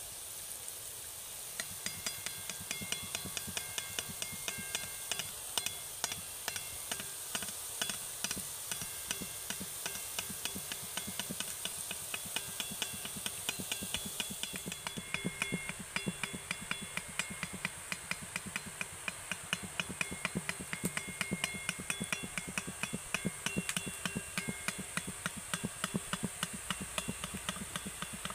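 Besan batter dropping through a perforated ladle into hot oil in a kadai: a steady frying sizzle with a fast run of sharp clicks and pops.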